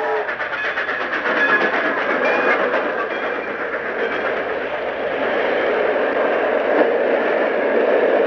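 Model steam freight train running past close by, its wheels rattling and clicking rapidly over the track as the cars roll by.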